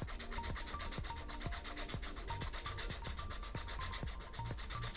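Medium-grit sandpaper rubbed rapidly back and forth by hand across a golf club ferrule, an even scratching of quick strokes. The ferrule's raised lip is being sanded down flush with the hosel.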